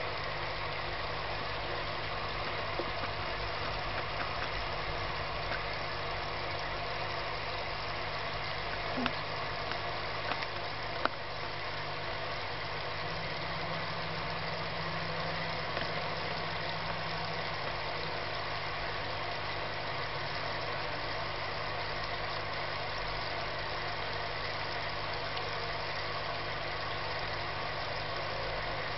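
Aquarium filter pump running: a steady low hum of several held tones under an even hiss, with a few faint clicks about ten seconds in.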